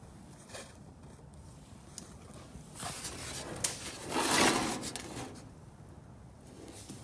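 A hand rubbing across the aluminium skin of a Cessna 140 aileron: one brief scraping swell about halfway through, with a sharp click just before it and light handling knocks around it.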